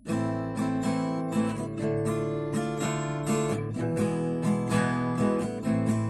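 Acoustic guitar strummed in a steady rhythm, playing the chords of an instrumental introduction.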